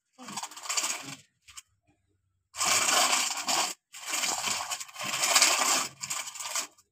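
Sandy soil being scraped up by hand and heaped into the plastic bed of a toy dump truck, in three stretches of scraping, the last two the loudest.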